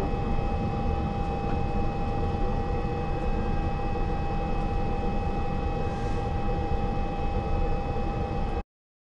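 Maruti Gypsy driving: a steady rumble of engine and road noise with a steady whine on top. It cuts off abruptly near the end.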